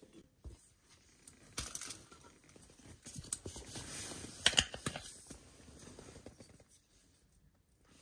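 Handling sounds of food prep on a lap cutting board: rustling and scattered light clicks, with a short cluster of sharp clicks about four and a half seconds in, fading near the end.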